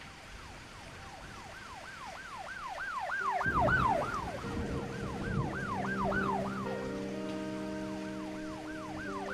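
Police car siren yelping in fast rising-and-falling sweeps, about three a second, growing louder as the car approaches, with a low vehicle rumble from about three seconds in. Steady low horn-like tones come in about halfway and are held to the end.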